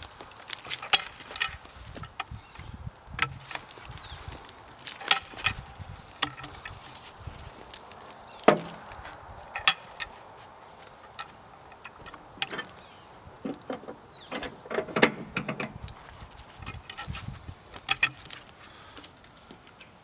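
Steel cant hook biting and levering on a bark-covered log as it is rolled by hand, with irregular sharp clicks, knocks and scrapes of metal on bark and of the log shifting on its skids. A heavier knock comes about eight seconds in, and a longer, lower rumble of the log rolling comes around fifteen seconds.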